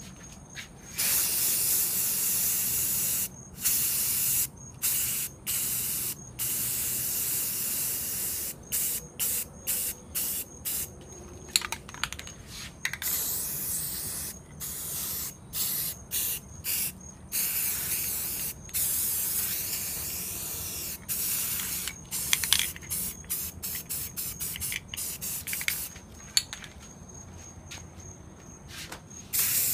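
Aerosol spray paint can hissing in repeated bursts, some held for a second or more and others in quick short puffs.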